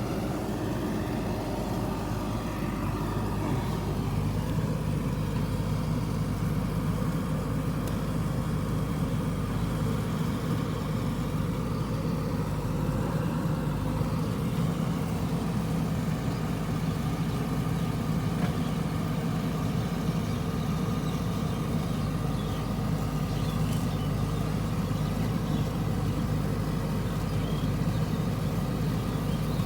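Backhoe loader's diesel engine running steadily at a low, idle-like speed.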